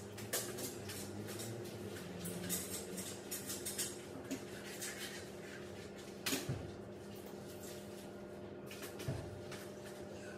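Scattered clicks, knocks and light clatter of cleaning tools being handled during floor cleaning, with a few sharper knocks, about half a second in, about six seconds in and about nine seconds in. A steady low hum runs underneath.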